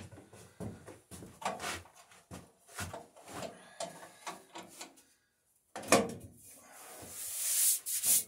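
Knocks and clatter from the hinged metal wheel covers of a Dunlap bandsaw being handled and closed, with the loudest bang about six seconds in as a cover shuts. A brief rubbing hiss follows near the end.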